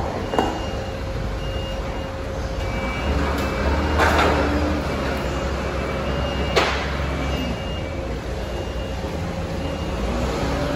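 Forklift working: its engine running, louder for a few seconds in the middle, with a reversing beeper sounding about once a second. Two sharp knocks, one near the start and one about two-thirds through.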